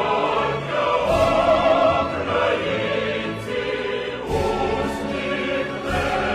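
Music with a choir singing in vibrato voices, over drum hits that come about once a second.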